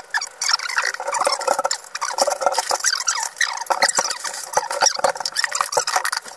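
Tent fabric and plastic bags crinkling and rustling as a tent is unpacked and put up, with many small clicks and knocks mixed in.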